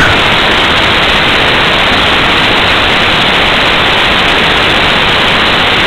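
Steady, loud hiss of static from the analog FPV video receiver's audio channel, with no motor sound in it.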